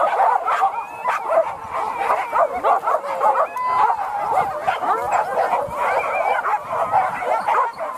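A pack of leashed hunting dogs barking and yelping together, many overlapping high-pitched calls in a continuous, unbroken chorus.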